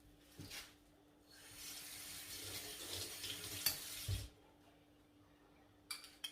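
Water pouring or running for about three seconds, with a sharp knock near its end and a couple of short clicks afterwards.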